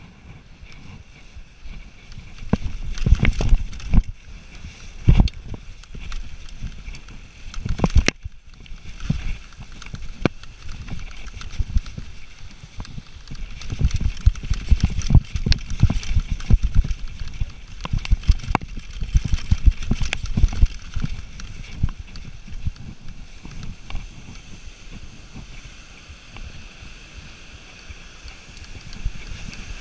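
Specialized Demo 7 downhill mountain bike descending a rough dirt trail at speed, heard from a handlebar-mounted camera: a constant rattle and clatter from the bike with many sharp knocks from impacts over a low rumble of tyres and wind. It is busiest for a few seconds near the start and again through the middle.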